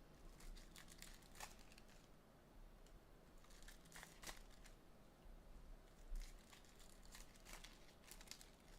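Faint crinkling and tearing of plastic wrapping as a trading-card box is unwrapped, in short scattered crackles.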